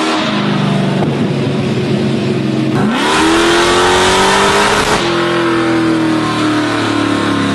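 Supercharged V8 of a 1970 Dodge Charger R/T running loud under load on a dyno. It revs up sharply about three seconds in and holds high for two seconds, then drops back and slowly falls away.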